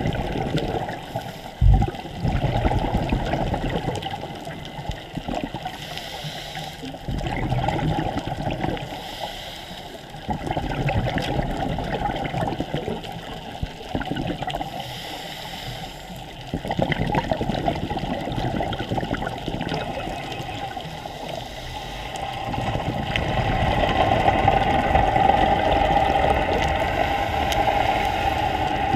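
Underwater sound of scuba diving, muffled through a camera housing: regulator breathing and exhaled bubbles gurgling, swelling and fading every few seconds. A single low thump comes about two seconds in.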